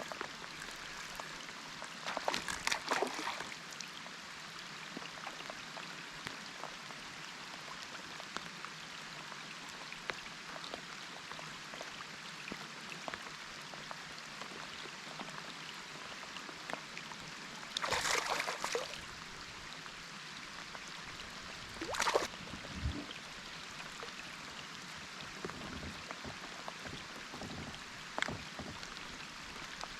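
Steady water noise with three short, louder splashes: one about two and a half seconds in, one a little past halfway, and a sharper one a few seconds later.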